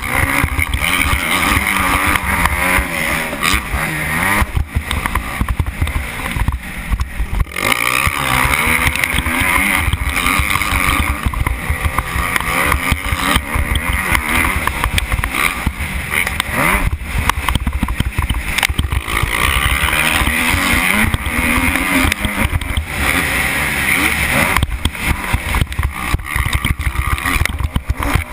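Kawasaki KX250F four-stroke single-cylinder motocross engine running hard, its pitch rising and falling again and again as the throttle is worked. Wind rumbles steadily on the helmet microphone.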